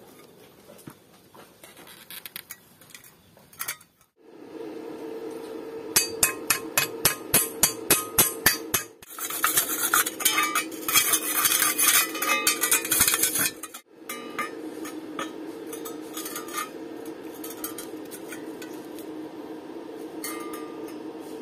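Hammer strikes on the welded steel tube, about four a second, then several seconds of denser metallic clinking and scraping: slag being chipped off a fresh stick weld. A steady low hum runs under the later part.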